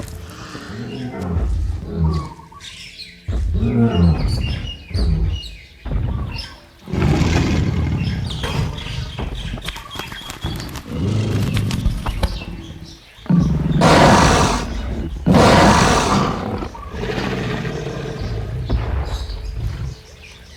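Dinosaur creature sound effects: a string of separate growls, snarls and roars, each a second or two long. The two loudest roars come about two-thirds of the way through.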